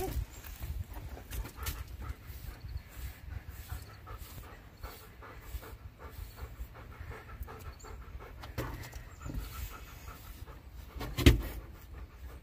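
German Shepherd-type dog panting in a steady rhythm; a single sharp thump near the end.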